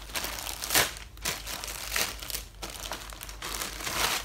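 Plastic shipping bag and packaging rustling as it is handled and opened and its contents pulled out, in a series of uneven rustles, loudest about a second in and near the end.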